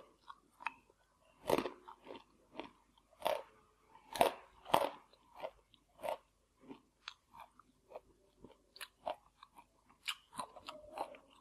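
Crunching and chewing of a crisp baked banana chip: a run of sharp crunches, loudest in the first five seconds, thinning into lighter chewing toward the end.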